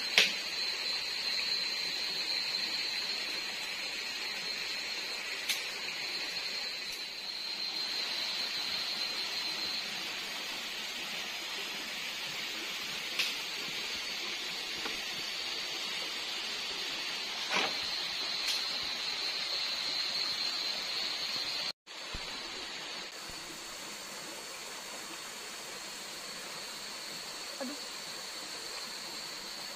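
Steady night-forest ambience: an even hiss under a steady high-pitched drone. A few sharp crackles from a wood campfire come through in the first half. A brief dropout about 22 seconds in leaves the rest a little quieter.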